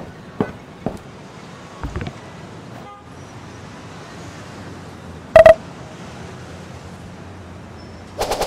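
City street ambience with traffic hiss, a few footsteps in the first second, one short loud car horn honk about five seconds in, and a quick burst of honks near the end.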